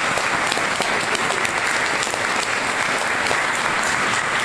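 Church congregation applauding: dense, steady clapping of many hands.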